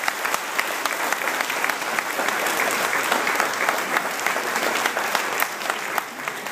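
Audience applauding, a dense patter of many hands clapping that thins out near the end, leaving a few sharper single claps.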